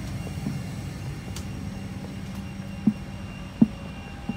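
Steady mechanical hum inside a Boeing 747-400 freighter's main cargo deck, with a constant low tone and faint high steady tones, from the parked aircraft's running systems. A few dull thuds of footsteps on the deck floor come near the end, the loudest about three and a half seconds in.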